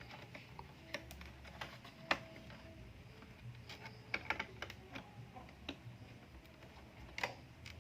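Scattered light clicks and taps, about ten of them at irregular times, from a DDR3 laptop RAM module being handled and turned the right way round at the memory slot.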